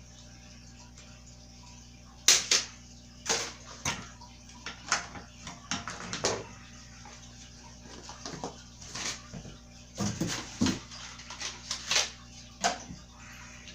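Irregular knocks, clicks and rustles of toddler-bike parts and their packaging being handled, the loudest knocks about two seconds in and again around ten to twelve seconds in.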